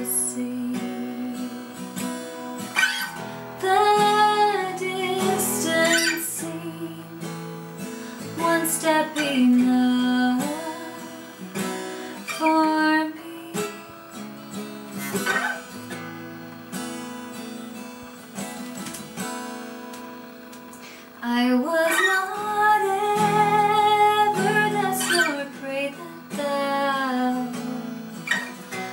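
A woman singing a hymn to her own acoustic guitar. Partway through the voice drops out for a stretch, leaving the guitar playing alone, then comes back in.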